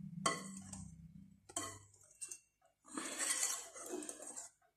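Wire balloon whisk beating thick chocolate batter in a glass bowl, its wires scraping and clinking against the bowl in several spells, the longest near the end. The batter is being mixed right after the melted chocolate was added.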